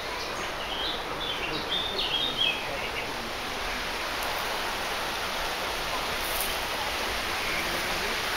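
Songbirds chirping in short calls over the first three seconds or so, over a steady rush of running water from a stream.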